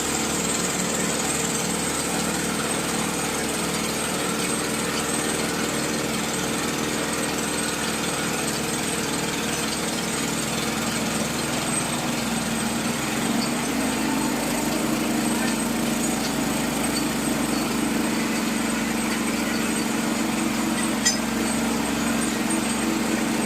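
Small engine driving a water-well drilling machine, running steadily; its note changes a little about halfway through, and a single sharp click is heard near the end.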